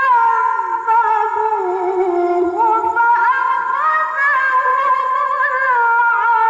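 A teenage girl reciting the Quran in the melodic tilawah style of competition recitation, holding long notes with wavering ornamental turns. The voice slides down through a phrase in the first half, then steps back up about three seconds in and holds a high note.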